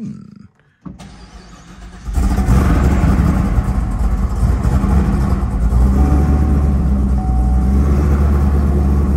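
The fully built, Magnuson-supercharged 377 cu in LT4 V8 of a 2019 Camaro ZL1 1LE cranks for about a second, then fires about two seconds in and settles into a loud, steady idle.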